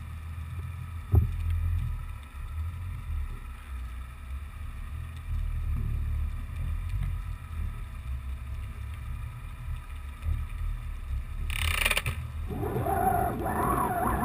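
Low, muffled rumble of water moving against a GoPro's waterproof housing as it hangs underwater, with a single knock about a second in. Near the end a brief hiss is followed by a busier, brighter jumble of sound as the camera rises toward the surface.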